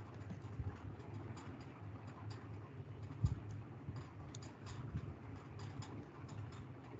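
Faint scattered clicks and ticks over a steady low hum, with one sharper thump about three seconds in.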